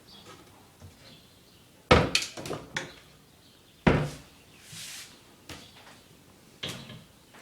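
Kitchen cupboard doors being opened and shut. There is a loud knock about two seconds in with a few quick clicks after it, another loud knock about four seconds in, and a lighter knock near the end.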